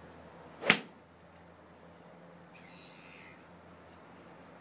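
A single sharp click of a 3-iron striking a golf ball off a range mat, about two-thirds of a second in.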